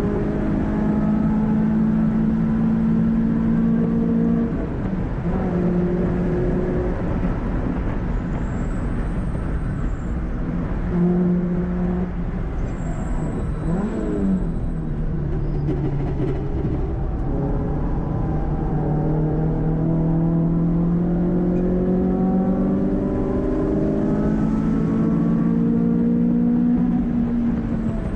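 Renault Clio 182's 2.0-litre four-cylinder engine with a cone filter intake, heard from inside the cabin at high revs. It drops in steps as the car brakes hard and changes down around the middle, with a quick up-and-down rev change, then climbs steadily through the revs as the car accelerates again.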